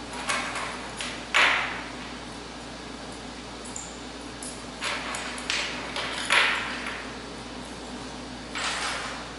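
A series of about six short handling noises, each a brief scrape or rustle, spaced irregularly a second or more apart, the loudest about a second and a half in and near six seconds. A steady low room hum runs underneath.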